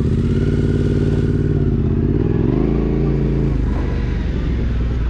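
Yamaha Ténéré 700's parallel-twin engine running, steady at first, then its revs shift and waver about two seconds in as the bike gets under way.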